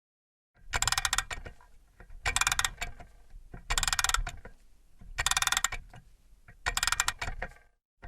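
Mantle clock mechanism clicking in five short bursts of rapid ratchet-like ticking, about one every second and a half.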